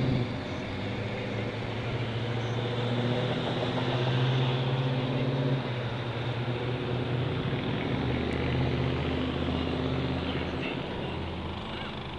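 A car engine running at low revs, heard from inside the car, with a steady low hum that shifts in pitch a couple of times, along with general street traffic noise.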